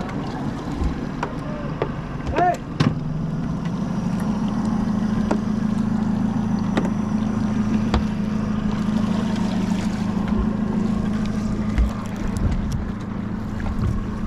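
Boat engine running with a steady low hum that grows louder about four seconds in, with scattered knocks and clicks.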